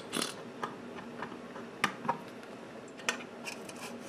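Scattered light clicks and taps of a thin metal rod and a glue bottle against an aluminium chassis and rocker switch while glue is spread around the switch, the loudest a little under two seconds in.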